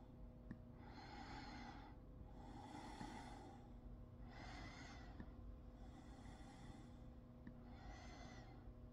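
Faint breathing close to the microphone: five soft breath sounds, about one every second and a half, over a low steady hum.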